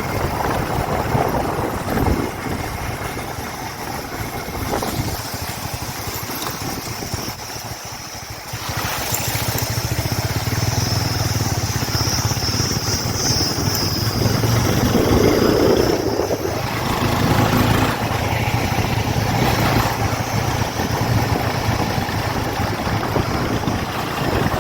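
Motorcycle engine running on the move, a steady low hum under road and wind noise; it grows louder about eight seconds in.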